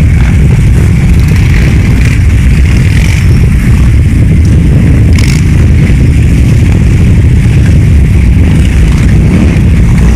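A large pack of cruiser and touring motorcycles riding past in a slow procession, their many engines blending into one loud, steady low rumble.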